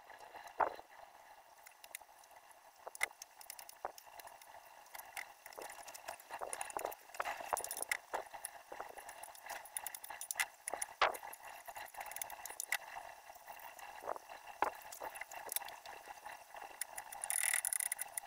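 Scattered light clicks and knocks at an irregular pace, with a faint steady hiss underneath and a brief rise in hiss near the end.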